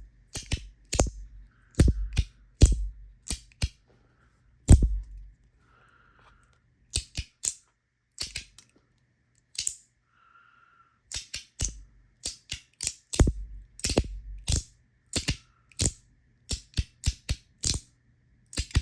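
01EDC Pod 2 fidget capsules being snapped open and shut, a run of sharp clicks, some in quick pairs, with two short lulls partway through.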